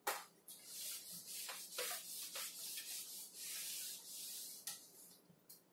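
Cloth wiping marker off a whiteboard: a run of faint swishing rubbing strokes that stops a little after four seconds in.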